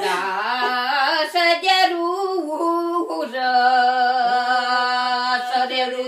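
Elderly woman singing solo and unaccompanied. Her melody steps between held notes, with one long sustained note in the middle.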